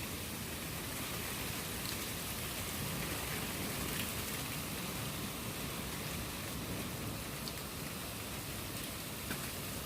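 Steady rain falling, a continuous hiss with a few sharper drop ticks here and there.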